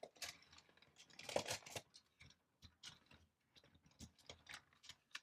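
Faint clicks, taps and small rattles of plastic toy vehicles being handled and moved about, with the loudest cluster about a second and a half in.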